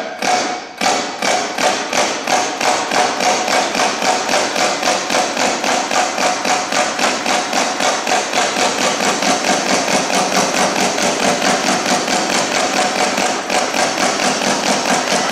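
Servo-driven robot paintball gun firing paintballs one at a time at a canvas, each shot laying down one dot of paint. The shots come as an even run of sharp pops, speeding up to about four a second, with a steady whine underneath.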